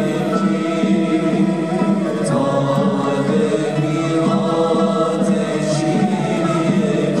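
Mevlevi sema ceremony music: voices chanting together over a steady pitched accompaniment.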